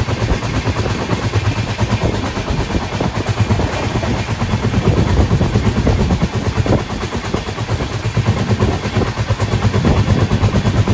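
Passenger train running on the track at speed, its wheels clattering rapidly over the rails over a steady low rumble.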